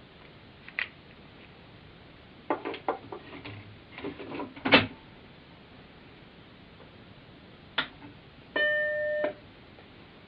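Macintosh computer: a series of sharp mechanical clicks, a quick cluster around the middle, then a single short steady electronic beep lasting under a second, a buzzy tone with even overtones.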